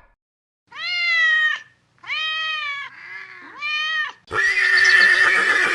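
A cat meowing: three loud, drawn-out meows with a fainter one between the second and third. About four seconds in, a louder, harsher animal call cuts in.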